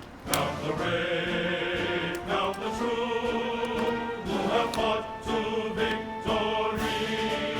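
Background music with a choir-like sung or chanted melody.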